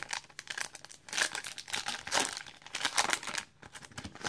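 Crinkly plastic wrapper of a trading-card pack being crumpled and torn open, in several bursts of rustling.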